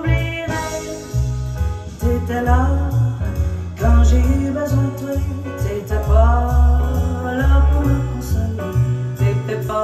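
Recorded pop music played back from cassette on a Sony TC-K88B deck through loudspeakers and picked up in the room: a heavy, steady bass line, a voice sliding up into held notes, and jingling percussion.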